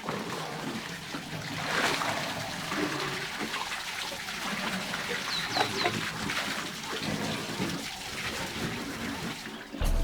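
Water splashing and trickling as elephants drink at a shallow waterhole, with a few faint high chirps about five seconds in.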